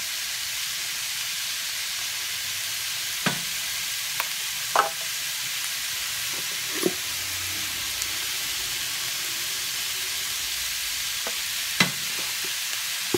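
Ground beef sizzling steadily as it starts to fry in a nonstick skillet, with a few sharp taps and clicks scattered through it.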